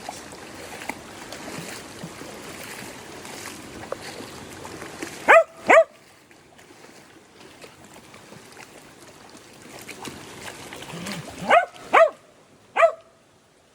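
Dog barking: two short barks about five seconds in, then three more near the end.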